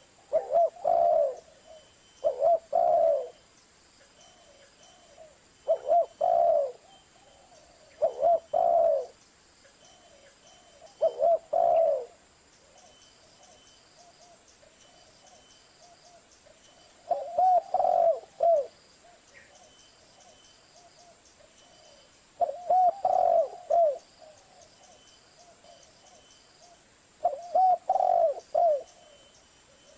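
Spotted dove (tekukur) cooing: short phrases of a few low coos, repeated about eight times with uneven pauses between them.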